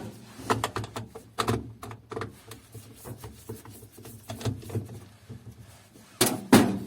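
Irregular clicks and knocks of a screw being undone and the plastic housing of a Kyocera laser printer's developer unit being handled, over a low hum, with a cluster of louder knocks about six seconds in.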